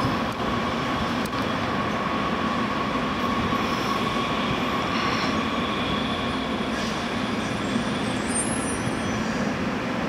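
Muni Breda articulated light rail vehicle running slowly along street track toward and onto a curve, a steady rolling rumble, with a faint high wheel squeal near the end.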